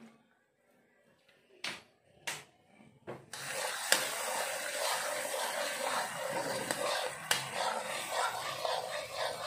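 A few light knocks, then about three seconds in a sudden, steady crackling sizzle of food frying in hot oil for a Thai stir-fry, with an occasional sharp tick of a utensil against the pan.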